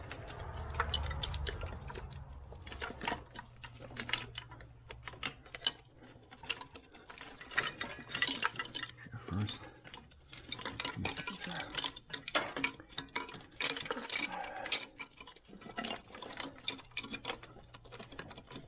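Hand tools working on a car engine: a run of irregular metallic clicks and clinks, some of them ratchet-like, with a low hum during the first couple of seconds.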